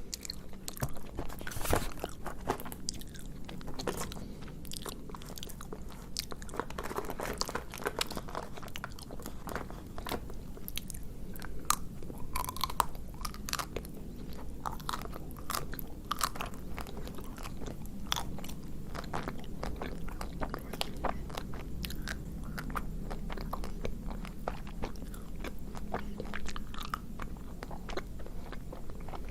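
Biting and chewing of a chocolate-coated ice cream bar, the hard chocolate shell crunching in many sharp cracks.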